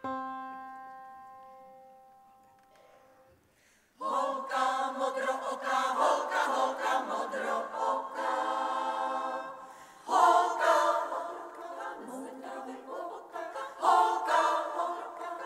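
A piano sounds a single starting note that rings and fades over about three seconds. About four seconds in, a women's choir enters singing a cappella in several parts, swelling louder twice near the end.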